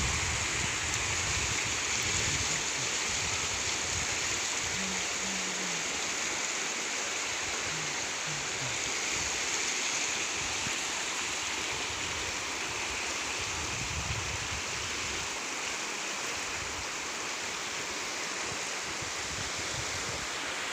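Floodwater rushing and flowing: a steady, even hiss of moving water.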